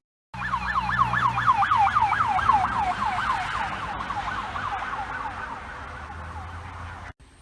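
Emergency vehicle siren on a fast yelp, about four sweeps a second, over a low steady rumble. It grows fainter as it goes on, then cuts off suddenly near the end.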